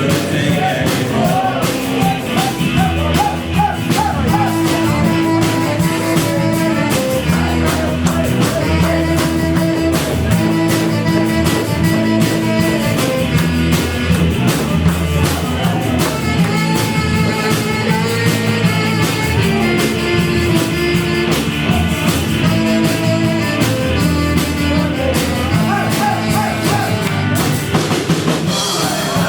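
Live rock band playing a song: drum kit with a steady beat under bass and guitar.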